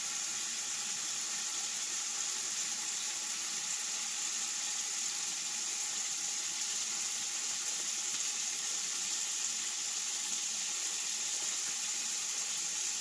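Food sizzling in a frying pan on an electric stove burner: a steady hiss that does not change.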